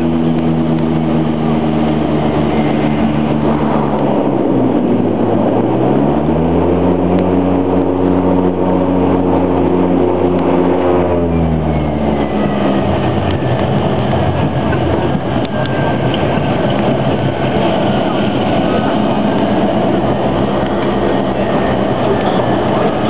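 Cabin noise of a twin-engine propeller plane on its landing rollout. The steady propeller drone dips in pitch about four seconds in and climbs back. About twelve seconds in it dies away as the plane slows, leaving a rumbling rollout noise with a faint falling whine.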